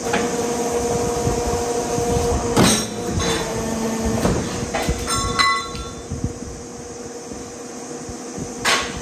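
Heavy metalworking press running with a steady hum while steel angle is fed through it. Several loud metal bangs come from its strokes, the last near the end, along with ringing clinks of steel pieces about halfway through.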